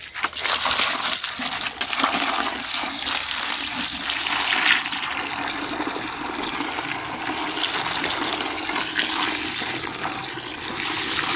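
A garden hose pouring a steady stream of water into a plastic bucket, splashing and filling it up over the rotting heads inside to start water maceration. The flow comes on suddenly at the start and runs on evenly.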